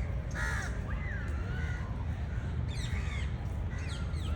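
Crows cawing, a handful of calls over a few seconds, over a steady low rumble.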